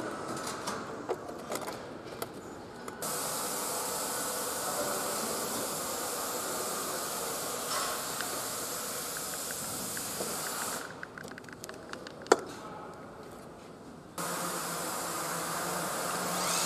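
Assembly-workshop background noise: a steady hiss that cuts in abruptly about three seconds in, falls away near eleven seconds and returns near fourteen, with light handling clicks and one sharp click about twelve seconds in.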